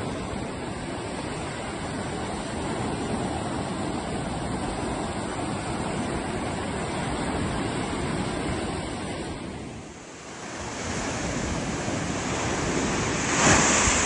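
Ocean surf breaking and washing up a sandy beach: a steady rush of waves. It dips briefly about ten seconds in, then builds to a louder wave crash near the end.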